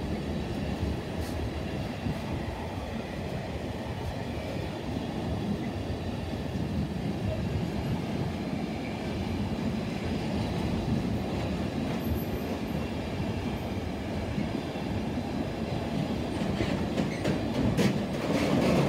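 Container wagons of a long intermodal freight train rolling past with a steady rolling rumble of wheels on rail. Near the end the rhythmic clickety-clack of wheels over rail joints grows louder.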